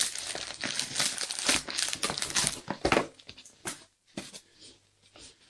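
Plastic mailing wrap crinkling and crackling as it is pulled off a cardboard box, dying away after about three seconds into a few light knocks.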